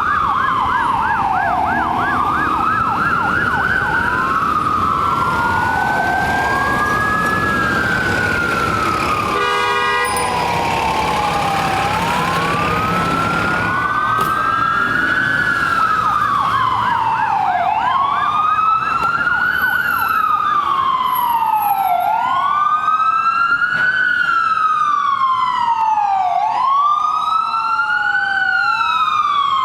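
Ambulance siren sounding in its wail pattern, the pitch rising and falling slowly every few seconds, at times with a second offset wail overlapping. It switches briefly to a fast yelp warble near the start and again about halfway through, and a short steady horn-like tone cuts in about ten seconds in.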